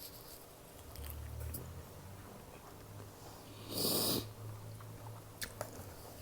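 One sharp sniff through a nose running from spicy food, about four seconds in, over a low steady hum, with a few faint clicks after it.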